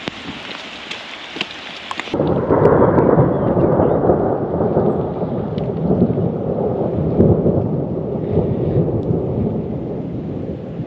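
Summer rain: scattered drops ticking for about two seconds, then an abrupt switch to a much louder, muffled rushing noise of heavy rain that carries on to the end.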